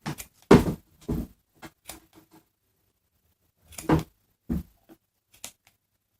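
Handling noise from working a yarn pom-pom maker with scissors: an irregular scatter of short knocks and rustles, loudest about half a second in and again near four seconds in.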